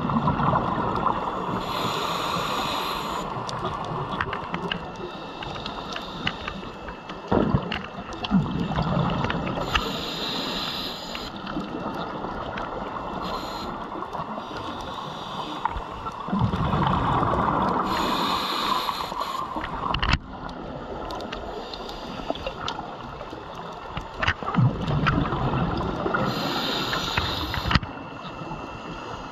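A scuba diver breathing through a regulator underwater: a rush of air and bubbles that swells four times, about eight seconds apart, with scattered faint clicks.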